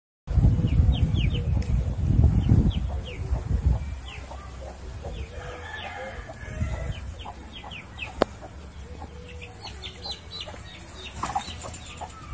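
A hen and her chicks: chicks peep over and over in short, high, falling notes while the hen clucks. There is a loud low rumble in the first few seconds.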